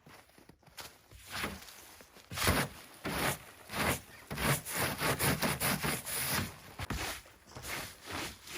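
Irregular scuffing and rustling noises, a few every second, loudest in the middle, with no engine running.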